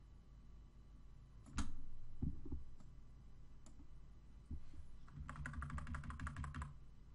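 Computer keyboard and mouse clicks at a desk: a sharp click about one and a half seconds in, a few soft knocks, then a quick run of about a dozen clicks near the end.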